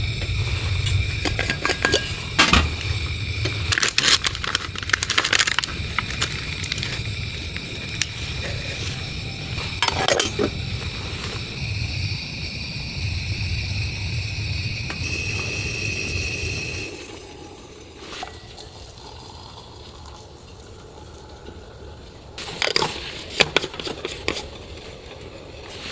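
Cookware and utensils clinking and scraping in scattered knocks, over a low rumble that stops about 17 seconds in.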